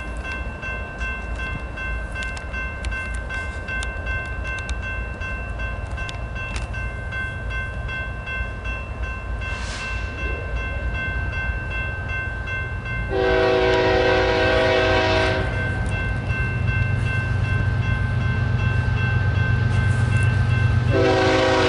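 Approaching BNSF freight train's K5HL locomotive horn sounding one long blast about 13 seconds in and starting another near the end, with the train's low rumble growing louder beneath. A steady high ringing from the crossing bell runs under it.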